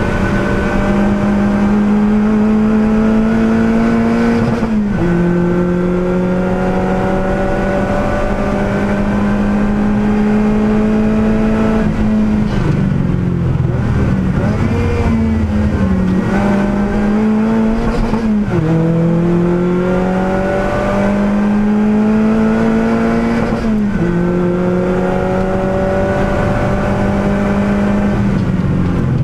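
Lotus Elise Cup R race car's engine under full racing load, heard from inside the cockpit. The pitch climbs steadily in each gear and drops sharply at upshifts about five, eighteen and twenty-four seconds in. Around twelve to sixteen seconds in it lifts off and blips down through the gears for a corner.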